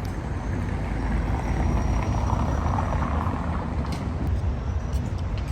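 Street traffic rumbling steadily, swelling in the middle as a vehicle goes by.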